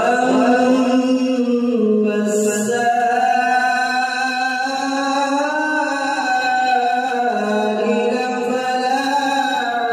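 A man reciting the Quran in melodic tajwid style, drawing out one long unbroken phrase whose pitch rises and falls gently.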